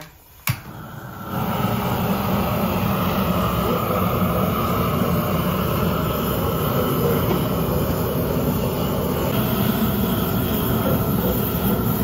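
A GrillGun propane torch blasting flame into a stainless-steel smokeless fire pit to light the wood: one click about half a second in, then a loud, steady rush of burning gas.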